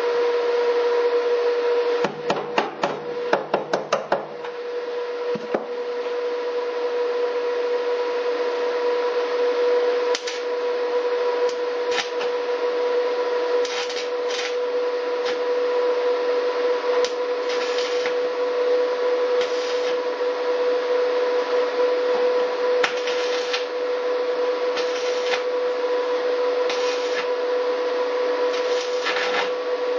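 Electric arc welding with a small inverter welder at about 69 amps: a steady crackling arc with a steady whine. About two seconds in the arc breaks off for a quick run of sharp taps, then settles back into a steady crackle.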